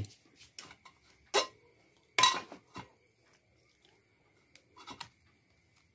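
Kitchen dishes and utensils clinking and knocking: a few separate sharp knocks, the two loudest about a second and a half and two seconds in.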